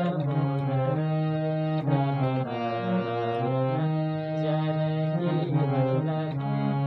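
Indian harmonium playing a melody of held reedy notes that step from one pitch to the next every second or so.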